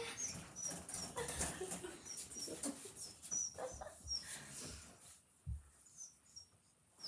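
Faint, short, high-pitched squeaks from a pet animal, repeated every half second or so, with soft rustling underneath.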